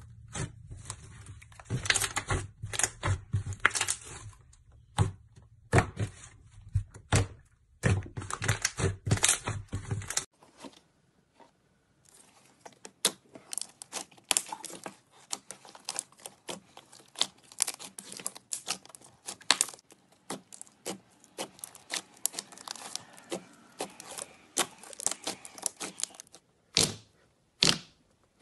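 Hands squishing and pressing thick slime, a dense run of sticky crackles and pops as air pockets burst. The crackling is loud at first, breaks off about ten seconds in, then resumes more softly as many small clicks, with a few sharp pops near the end.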